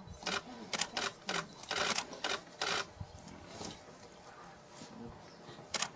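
A quick run of sharp clicks, about a dozen in the first three seconds, then a single click near the end.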